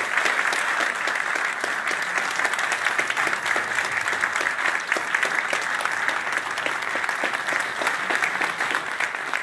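A large indoor audience applauding steadily, many hands clapping at once.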